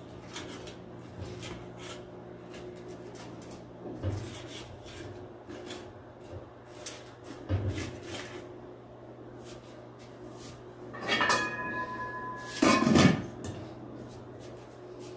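Light knocks and clicks as pieces of fried chicken are shifted around inside an aluminium pot, then a metal clang that rings briefly and, about a second and a half later, a louder clatter as the aluminium lid is set onto the pot. A faint steady hum sits underneath.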